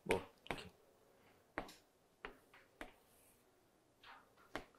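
Chalk on a chalkboard: about six short, sharp taps and scrapes, spaced irregularly, as lines and marks are drawn.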